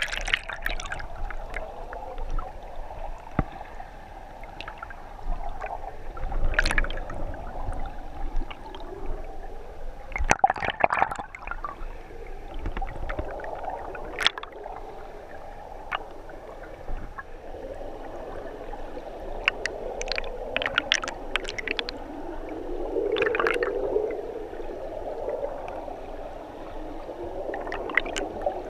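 Fast river current heard underwater: a steady, muffled rush and gurgle of water and bubbles, with scattered sharp clicks and knocks.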